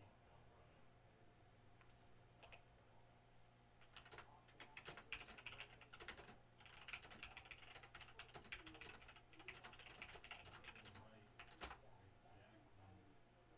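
Faint typing on a computer keyboard: quick runs of key clicks that start about four seconds in and stop shortly before the end.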